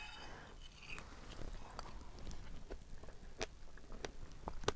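Faint chewing and biting, with a few sharp small clicks, the clearest about three and a half seconds in and just before the end.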